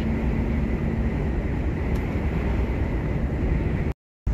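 Volvo lorry driving, heard from inside the cab: a steady engine and road rumble, with a short break of silence near the end.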